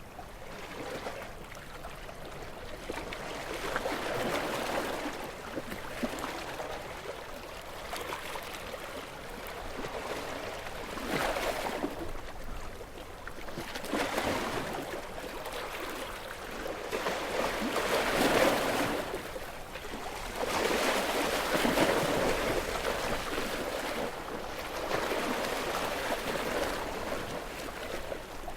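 Gentle waves breaking and washing onto a beach, the surf swelling and receding in irregular surges every few seconds.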